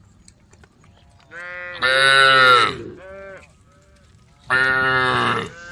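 Cows mooing: two loud, drawn-out calls, the first starting about a second in and the second past the middle, each followed by a shorter, fainter call.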